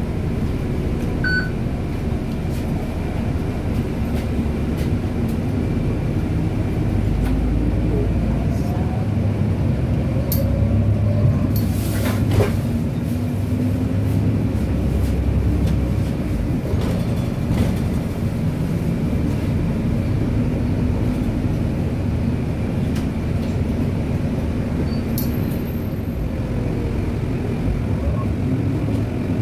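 Bus engine running with a steady low rumble, its pitch rising and falling several times as it pulls away and changes speed.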